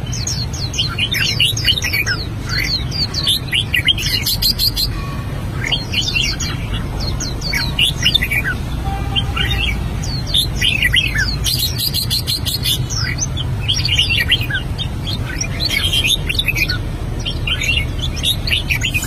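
Red-whiskered bulbul singing: quick chirped notes that rise and fall, in repeated bursts of song with short gaps, over a steady low hum.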